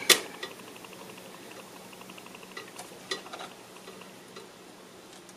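Soldering iron tinning a copper trace on a circuit board, the flux and solder sizzling faintly with a fine crackle. A sharp click at the start and a few light taps around the middle.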